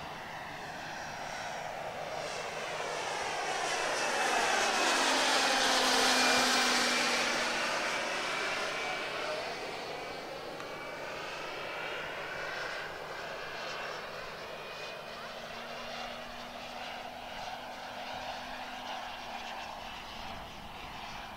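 Two radio-controlled Embraer EMB 312 Tucano scale models with turboprop engines flying past in formation: the engine and propeller sound swells to its loudest about six seconds in, then eases off as they fly on.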